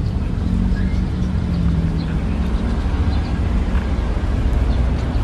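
Low steady rumble of a passing motor vehicle, its engine hum fading out about two seconds in.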